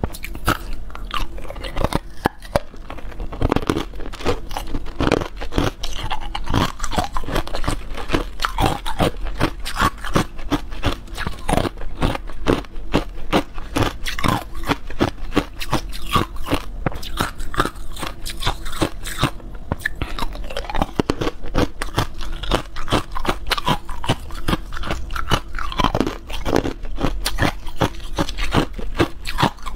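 Clear, hard ice cubes being bitten and chewed close to the microphone: a rapid, unbroken run of sharp crunches and cracks.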